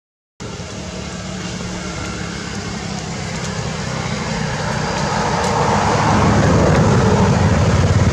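A motor vehicle approaching, its noise swelling steadily louder and peaking near the end.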